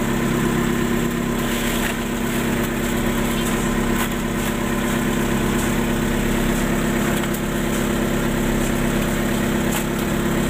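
A small engine idling steadily, a constant hum that holds the same speed throughout.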